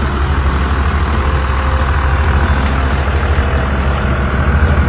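A motor vehicle's engine running steadily, a loud low drone with an even, unchanging pitch throughout.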